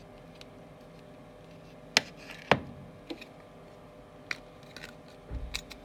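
Handling noise of a phone LCD panel on a steel workbench: two sharp clicks about half a second apart, then a few lighter ticks and a low thud near the end, over a steady hum.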